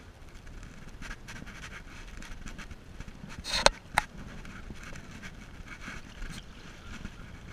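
Handling noise from a camera fixed to a fly rod during casting: steady wind and river hiss with light scraping, then a loud swish ending in a sharp knock about three and a half seconds in, followed by one short click.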